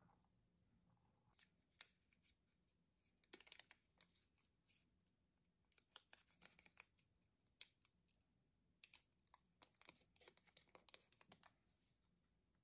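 Faint, crisp snips and clicks of small hand tools cutting and working soft Hi-Chew taffy candy. They come irregularly, in busy clusters about three seconds in, around six seconds and from about nine seconds on, with the sharpest click near nine seconds.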